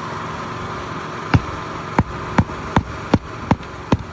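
Hammer driving a roofing nail into an asphalt shingle: seven sharp blows about 0.4 s apart, beginning about a second and a third in.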